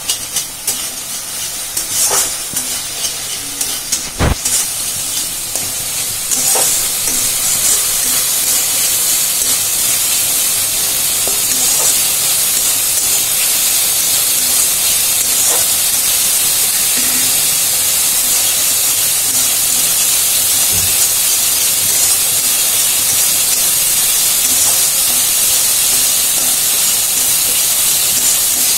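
Spice masala paste sizzling in oil in a steel kadai while it is cooked down until the oil separates at the sides. A metal ladle scrapes and knocks against the pan in the first few seconds, with one sharp knock about four seconds in. After about six seconds the sizzle turns into a loud, steady hiss.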